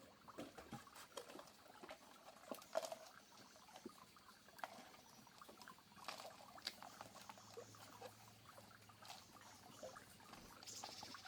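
Faint, scattered light taps, clicks and rustles of small objects being handled, at a level near silence.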